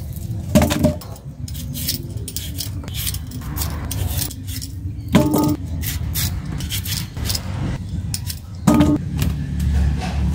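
Small hand peeler scraping and clicking against vegetable skins, quick irregular strokes. Three louder short pitched sounds stand out, about half a second in, about five seconds in and near the end, over a low steady rumble.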